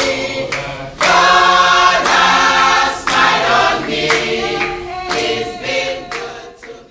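Group of women singing together as a choir, with hands clapping along to the song; the singing fades out near the end.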